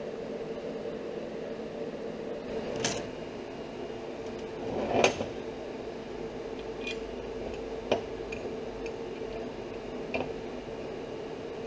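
Steel plates and a bolt being handled on a steel workbench: a few sharp metal clinks and knocks, the loudest about five seconds in, over a steady background hum.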